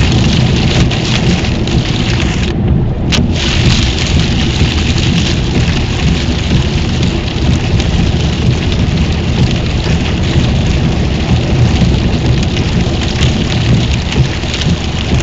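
Steady road and rain noise inside a car at motorway speed in heavy rain: a low rumble of tyres on a wet road under the hiss of rain and spray on the windscreen and body. The hiss drops out briefly about two and a half seconds in and comes back with a click.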